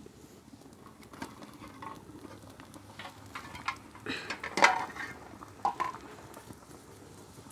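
A utensil stirring food in a cooking pot, scraping and clinking against the pot in irregular strokes. The loudest cluster comes about four to five seconds in.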